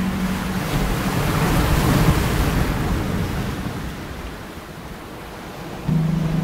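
Choppy bay waters washing against rocks, with wind, a rushing sound that swells about two seconds in and then eases. Under it a steady low drone cuts in at the start and again suddenly near the end.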